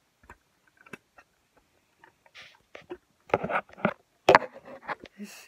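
Handling noise of a phone being pushed in among plastic Lego bricks: a few light clicks at first, then a dense run of plastic clatter, scrapes and knocks, the loudest sharp knock about four seconds in.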